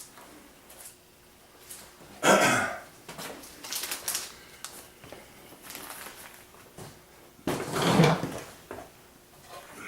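Small objects being handled and set down, giving a series of knocks, clinks and rattles. The loudest come about two seconds in and again near eight seconds in.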